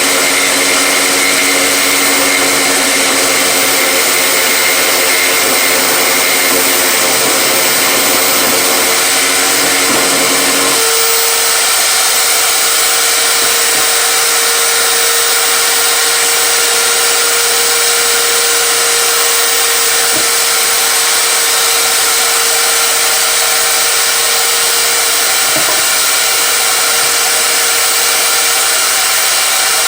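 A power tool running steadily and loudly without a break. About eleven seconds in, its sound changes: the lower hum drops away and a single steady mid-pitched tone carries on.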